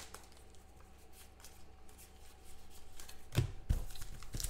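Football trading cards being handled: faint rustling and light flicks of card against card, then a couple of soft knocks about three-quarters of the way through as a stack of cards is tapped on the table.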